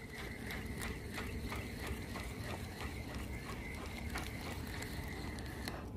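Spinning fishing reel being cranked in: a steady high whine from the reel with many quick, light clicks from its gears.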